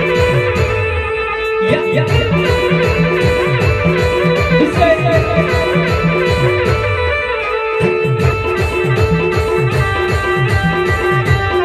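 Timli band music: a plucked electric-guitar lead over sustained keyboard tones and a quick, steady drum beat.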